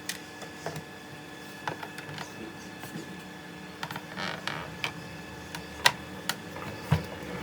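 Scattered light clicks and taps of a small home-built grinder's plates and parts being handled during disassembly, with a short cluster of taps about four seconds in, over a faint steady hum.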